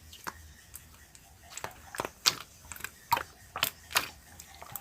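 Slime being pressed and squeezed by hand, giving a run of sharp, irregular clicking pops that grow louder and closer together after the first second or so.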